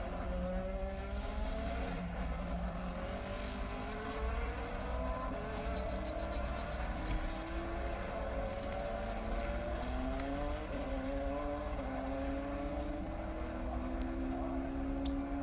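Race car engine accelerating through the gears on a Le Mans test lap, its pitch climbing and dropping back at each upshift several times over a steady low rumble.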